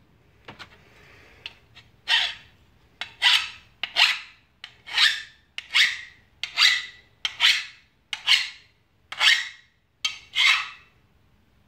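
Hand file rasping along the edge of a steel lawn mower blade, touching up the edge after grinding. About ten strokes, roughly a second apart, begin about two seconds in.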